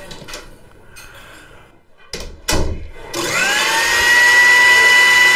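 Two sharp knocks, then about three seconds in a Sujata mixer-grinder's motor switches on. Its whine rises quickly to full speed and then runs steady and loud.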